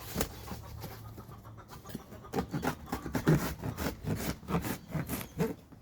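Cardboard box being handled: a run of quick scratching and rubbing strokes in the second half.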